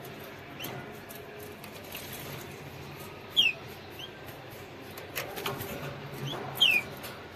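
Domestic canary giving short chirp calls that fall in pitch: a loud one about three and a half seconds in and another near the end, with a few softer cheeps between. A cluster of light taps comes a little past the five-second mark.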